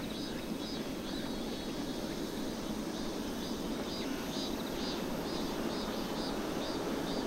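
Steady low rumble of distant jet airliner engines at the airfield, growing slightly louder toward the end, with faint high chirping repeating a few times a second over it.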